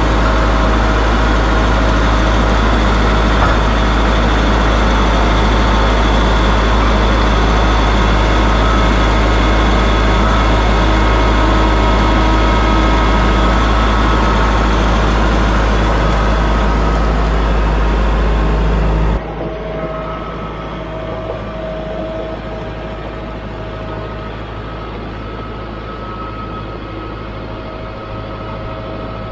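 A Kubota utility tractor's diesel engine running steadily, loud and close at first. About two-thirds through the level drops suddenly and the engine is heard from farther off as the tractor drives across gravel.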